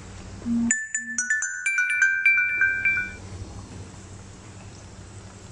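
A short jingle of bright chime notes: several quick notes at different pitches, overlapping and ringing for about two and a half seconds, starting under a second in and dying away after about three seconds.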